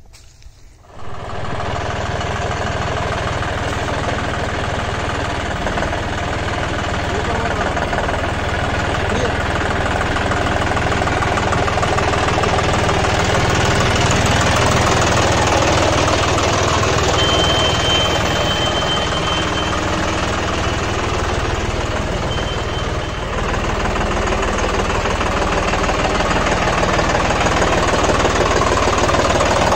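John Deere 5405 tractor's three-cylinder turbocharged diesel engine running steadily, coming in about a second in.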